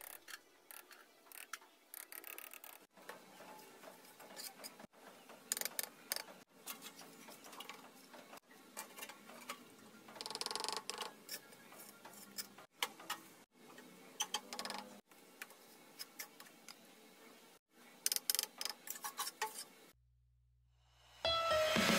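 Brick trowel and bricks being worked in wet cement mortar: irregular small taps and knocks as bricks are bedded and tapped down, with trowel scrapes, including a longer scrape about ten seconds in. Background music starts near the end.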